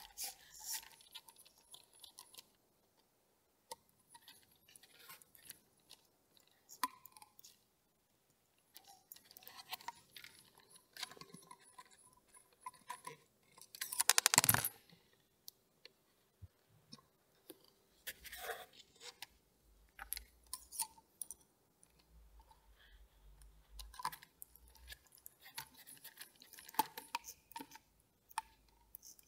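Hex driver and small screws and parts clicking and clinking against an RC touring car chassis as a screw is fitted and tightened. Scattered soft clicks, with one louder short clatter about fourteen seconds in.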